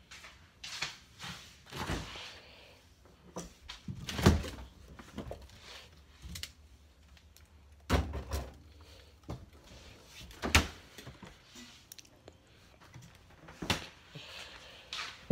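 Scattered knocks and thumps, the loudest about four seconds in, with further knocks near eight and ten and a half seconds and smaller clicks in between.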